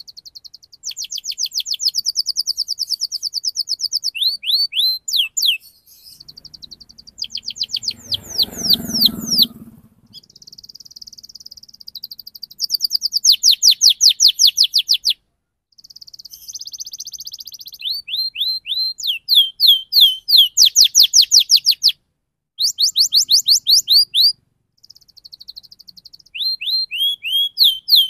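Domestic canary singing in rolling phrases: fast trills of rapidly repeated high notes alternating with runs of down-slurred whistles, each phrase lasting a few seconds with short pauses between.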